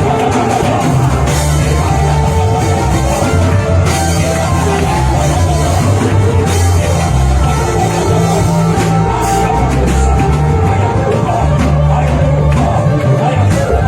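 Loud live worship music from a band with drums and a bass line, with voices singing.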